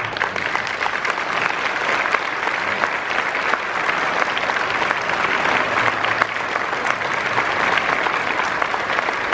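Audience applauding: a large seated crowd clapping steadily and densely.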